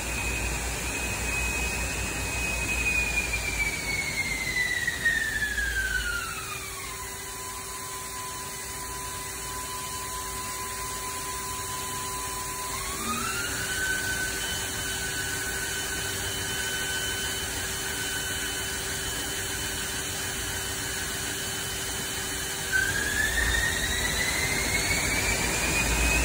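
Haas ST-45L CNC lathe spindle turning its 18-inch chuck as the spindle speed is changed: a high motor whine glides down a few seconds in and holds a lower steady pitch, steps up partway about halfway through, and near the end rises back to its first pitch. A steady lower hum runs beneath it.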